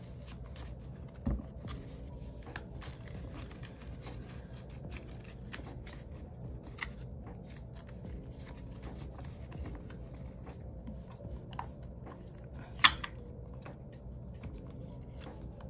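Paper and card handling: rustling and small clicks as a card is taken out of a box of cards. There is a thump about a second in and one sharp click, the loudest sound, late on.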